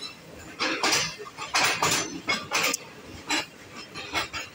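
Passenger train coaches rolling slowly past, with irregular metallic clanks and clinks from the wheels and running gear.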